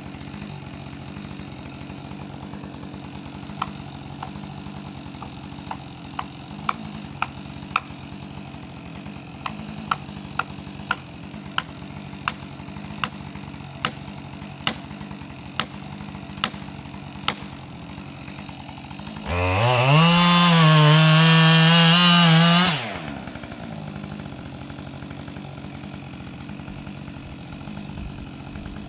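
Two-stroke chainsaw idling, with a series of sharp, evenly spaced knocks, about one and a half a second, for some fourteen seconds. About nineteen seconds in, the saw is throttled up to full revs for about three and a half seconds, then drops back to idle.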